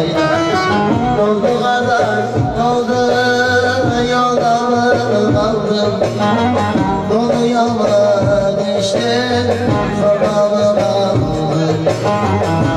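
Bağlama (long-necked saz) playing a Turkish folk tune, with a man singing over it.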